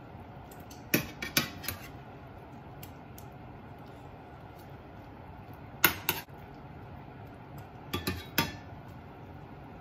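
Metal kitchen utensils clinking against a pan or serving dish in short groups: three clinks about a second in, two more near the middle, and another three near the end.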